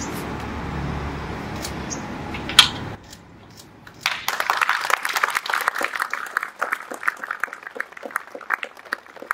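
A small crowd clapping. The applause starts about four seconds in and thins out toward the end, after a few seconds of steady background noise.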